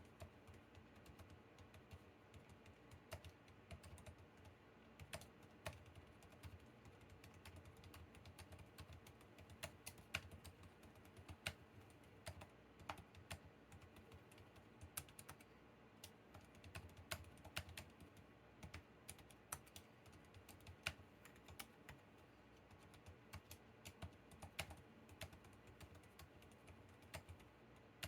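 Typing on a Drop CTRL mechanical keyboard fitted with Gazzew Bobagum silent linear switches (68 g pink tops): a steady, irregular stream of faint, muffled key presses, almost soundless, with no switch ping or click.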